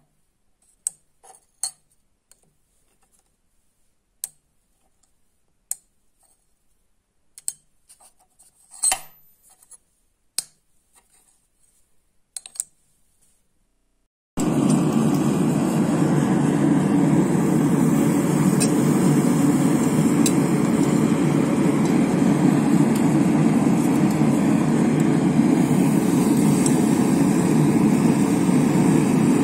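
Steel bars clicking and knocking now and then as they are handled on a steel plate. About halfway through, a forge cuts in, running with a loud, steady, low rushing noise.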